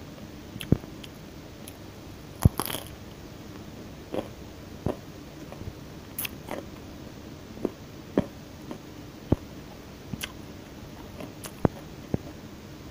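Close-miked chewing and biting of food, with sharp wet mouth clicks and crunches coming every half second to a second. The loudest is a single sharp snap about two and a half seconds in.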